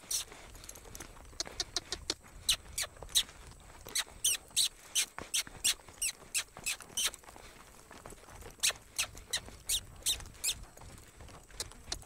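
Horse loping on soft arena dirt: a faint low drumming of hooves under runs of short high-pitched squeaks, two to four at a time at about three a second.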